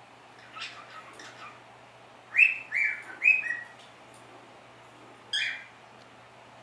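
Cockatiel chattering softly, then whistling three loud, short notes in quick succession, and a single further note a couple of seconds later.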